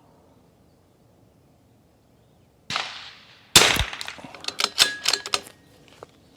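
A single shot from a .22 LR rimfire target rifle, then about two seconds of quick sharp metallic clicks and clatter, typical of the bolt being worked to eject the case and chamber the next round.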